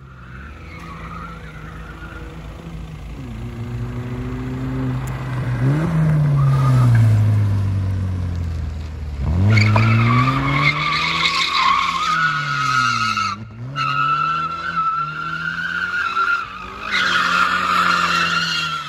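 A BMW E46 3 Series Compact drifting in circles, its engine revving up and down over and over with tyres squealing and skidding. The squeal grows loud from about halfway through, breaks off briefly, then comes back strongly near the end.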